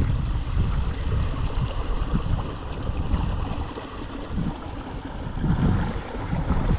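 Wind buffeting an action camera's microphone: a loud, low rumbling noise that rises and falls in gusts.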